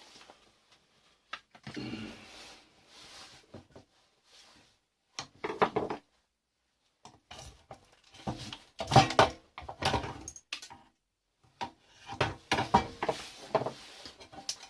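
Clattering, clicking and knocking from an alarm system controller box being handled and taken apart, in four separate bursts with short pauses between, the loudest about nine seconds in.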